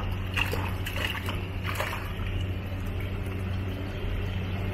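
Water splashing as koi are handled in a pond: a few short splashes in the first two seconds, over a steady low hum.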